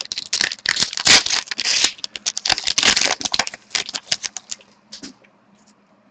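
Foil wrapper of a 2013-14 SPx hockey card pack being torn open and crinkled by hand: a rapid run of sharp crackles that dies down after about four seconds, leaving a few faint ticks.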